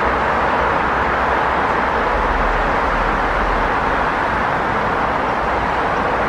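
Busy city street traffic: a steady, even wash of car engine and tyre noise, with no single vehicle standing out.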